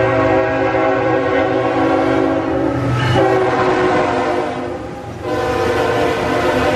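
A CSX freight diesel locomotive's air horn sounds a chord in long blasts over the rumble of the train. The horn breaks briefly about three seconds in and again near five seconds, then comes back on a different-sounding chord.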